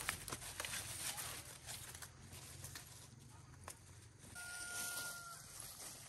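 Chickens calling, with one held call about a second long a little over four seconds in, among scattered light knocks.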